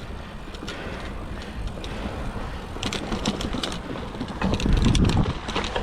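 Mountain bike rolling over a dirt trail: steady tyre and drivetrain noise with rattling clicks, in clusters about three seconds in and again near five seconds, and a low rumble of the bike over rough ground about four and a half seconds in.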